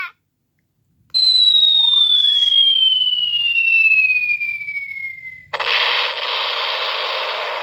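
Mini sound effects machine playing a falling-bomb effect through its small speaker: a long whistle that falls steadily in pitch, then an explosion that fades out.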